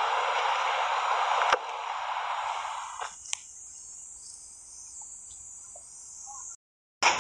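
Outdoor ambience with a steady high chirring of insects. It sits under a broad hiss that drops away about a second and a half in, with a couple of faint clicks about three seconds in. The sound cuts out abruptly near the end.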